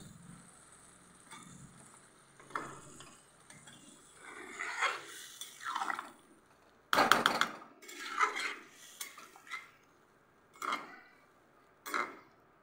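Steel spatula stirring a watery egg and cauliflower curry in a kadhai, scraping and clinking against the pan in irregular strokes, with a louder run of clinks about seven seconds in.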